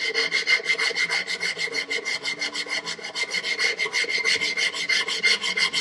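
Sandpaper on a thin wooden sanding stick worked rapidly back and forth inside a chiseled handle slot in a cherry tray side, smoothing away chisel unevenness and the auger-bit indentation. Fast, even rasping strokes, several a second, with no break.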